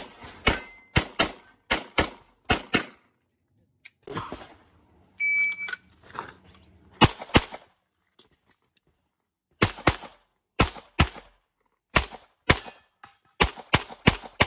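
Handgun shots fired in fast strings, many as quick pairs, during an IPSC stage. About five seconds in, a shot timer gives its short high start beep, and the shooting then resumes in further quick strings.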